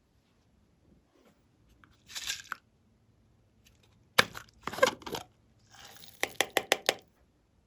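Glossy slime being squeezed and stretched by hand, with crackling bursts and then a quick run of about six sharp air-bubble pops.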